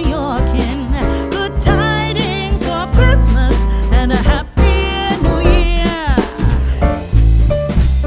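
Background music: a song with a singing voice over bass and instruments, with a brief break about four and a half seconds in.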